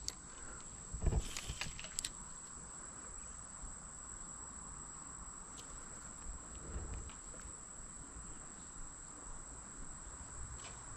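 Crickets or similar insects chirring as a steady, high, thin drone, with a few sharp clicks and a soft low thump in the first two seconds.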